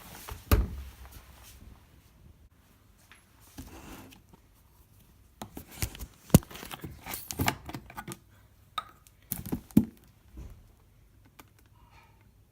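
Scattered clicks and knocks at a Whirlpool washing machine: a loud thump about half a second in, then clusters of sharp clicks and knocks.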